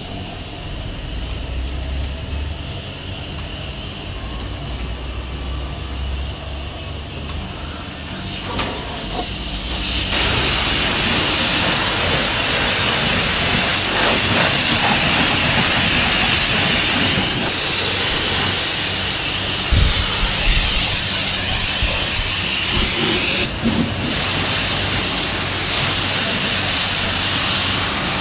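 Self-service car wash jet: a low hum for the first ten seconds, then a loud, steady hiss that sets in suddenly and keeps going, with a thump about twenty seconds in.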